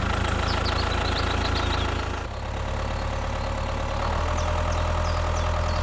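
Engine idling with a steady low drone, shifting slightly in pitch about two seconds in and again about four seconds in.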